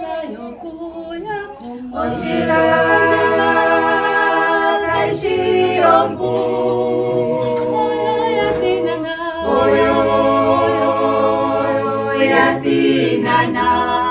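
A small group of singers, mostly women, singing together unaccompanied in several voices. The song starts softly and swells fuller about two seconds in.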